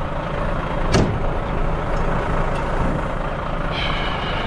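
Truck's diesel engine idling steadily, with one sharp knock about a second in and a brief high tone near the end.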